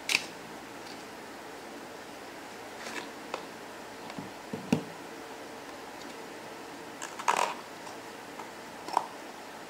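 Small paperboard cube box and plastic puzzle cube being handled: scattered sharp clicks and taps of the card flaps and cube, a low knock almost five seconds in, and a brief scraping rustle a little past seven seconds, over a steady hiss.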